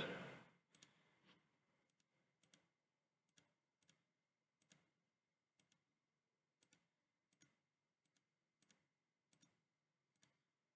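Faint computer mouse clicks, a dozen or more at uneven intervals, over near silence.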